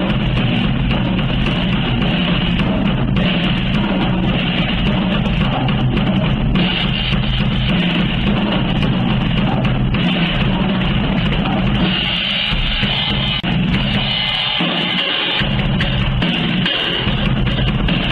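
Loud rock music with a drum kit playing throughout, with bass drum and cymbals.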